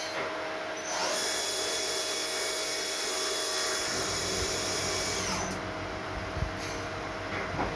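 CNC machine running: a steady motor hum throughout, with a high-pitched whine that sweeps in about a second in, holds steady, and stops about five and a half seconds in.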